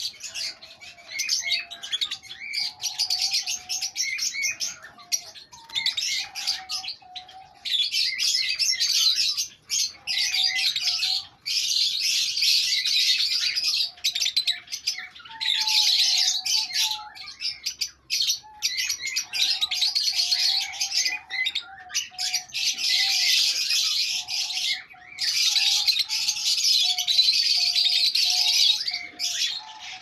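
Rosy-faced (peach-faced) lovebirds chattering in a cage: shrill, rapid chirping in long runs broken by short pauses.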